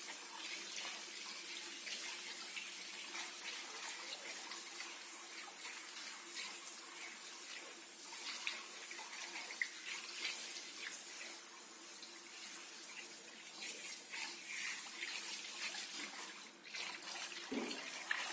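Warm water from a shower running and splashing onto a wet spaniel's coat in a grooming bath, a steady hiss that dips briefly near the end.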